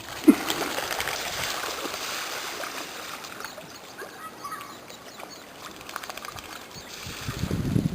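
Pond water splashing and rippling, with a sharp splash just after the start and a steady watery hiss that slowly fades.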